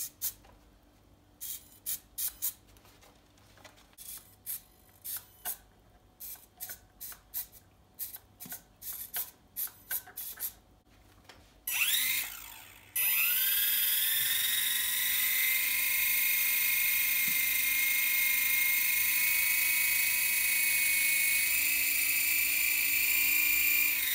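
Mini servos give a series of short whirring buzzes as they move the model plane's control surfaces. About twelve seconds in, a small electric motor taken from an RC helicopter spins the propeller up with a rising whine, then runs at a steady high-pitched whine.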